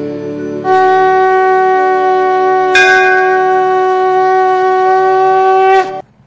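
Conch shell (shankh) blown in one long, steady, loud note that starts about a second in, with a sharper, brighter blast near the middle, cutting off abruptly near the end; faint background music sits under it at the start.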